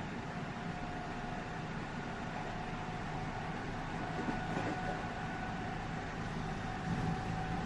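Running sound heard from inside a JR West 207 series 1000 electric multiple unit at steady speed: a steady rumble of wheels and track with a faint, even whine from the Toshiba GTO inverter drive.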